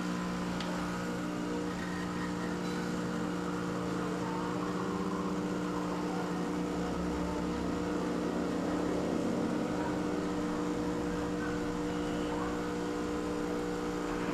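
Breville Dual Boiler espresso machine's vibratory pump humming steadily while it pulls an espresso shot.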